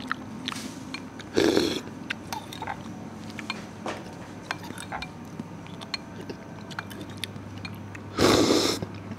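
Metal spoon and fork clinking and scraping against a china soup bowl as the last of the broth is scooped up. Two short, louder noisy sounds stand out, about a second and a half in and again near the end.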